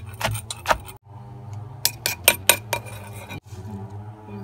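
Wooden pestle pounding shredded santol salad in a clay mortar: a few sharp knocks at the start, then a quick run of about five knocks around two seconds in.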